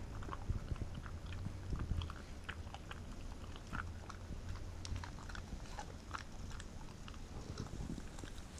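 A Pembroke Welsh corgi chewing and crunching food off the floor: irregular small crunches and clicks of its teeth, over a steady low hum.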